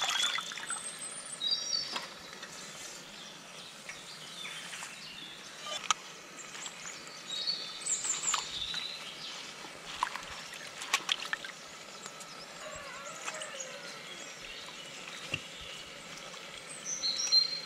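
Outdoor rural background with birds chirping now and then in short high calls, and scattered sharp clicks and knocks.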